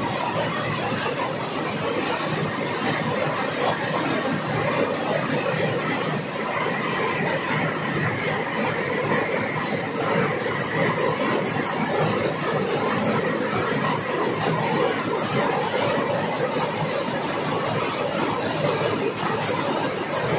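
Heavy downpour: rain pouring onto the street and splashing, a steady dense hiss.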